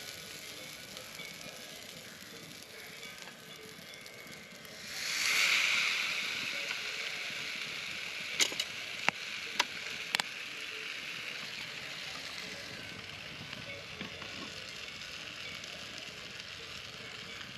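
Potato waffle batter sizzling in a hot, oiled waffle iron over a fire, with a loud surge of sizzling about five seconds in that slowly dies back, and a few sharp clicks near the middle.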